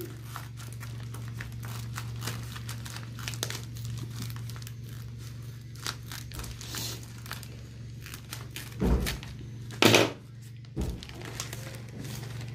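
Scissors cutting through a plastic courier mailer bag, with the plastic crinkling and rustling as it is handled and pulled open; a few louder crinkles come about nine to eleven seconds in.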